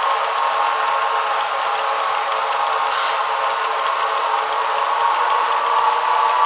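Broadway Limited Paragon 3 model PRR P5a electric locomotives running under power: a steady mechanical hum with light, rapid ticking over it, and a brief faint high squeak about three seconds in.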